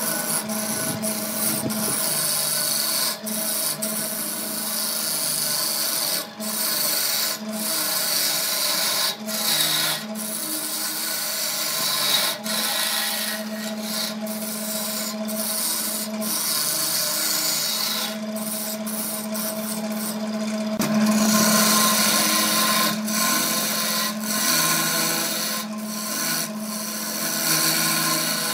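Wood lathe running with a steady motor hum while a hand-held turning tool cuts the spinning wooden blank: a continuous scraping hiss of wood being cut, broken by many brief gaps where the tool lifts off. The cutting is loudest about two-thirds of the way through.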